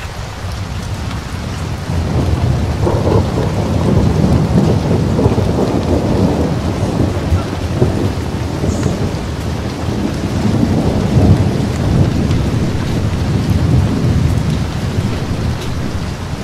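A dense, low rumbling noise that grows louder about two seconds in and keeps going with uneven swells.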